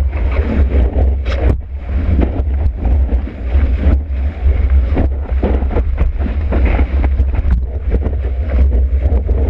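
Wind buffeting a surfboard-mounted camera's microphone in a steady low rumble, over the rush of water and irregular splashes as the board rides a breaking wave.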